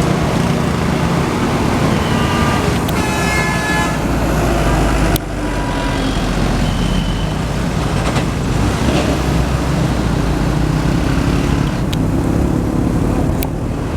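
A tour bus's multi-tone telolet air horn sounds for about two seconds, starting about three seconds in, with shorter horn tones a little later. Steady engine and road noise run underneath.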